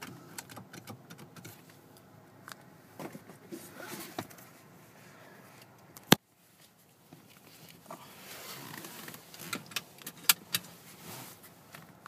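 Scattered small clicks and rattles of things being handled inside a car cabin, with one sharp, loud click about six seconds in.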